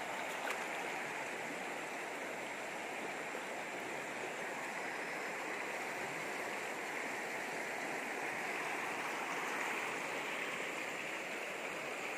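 Shallow river rushing over rocks and riffles: a steady, even rush of flowing water.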